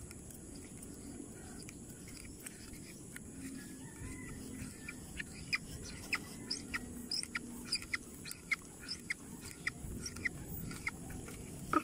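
Birds chirping in short, scattered calls over a faint steady background, the calls coming thicker from about halfway through.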